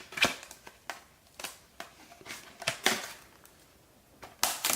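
Plastic wrapping crinkling and rustling in several short, scattered bursts as it is pulled off a Blu-ray steelbook case.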